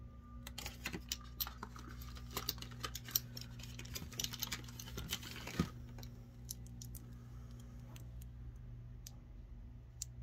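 Quick clicks and taps of small glass pigment vials and their packaging being handled with long acrylic nails, dense for the first five and a half seconds and sparser after, over a steady low hum.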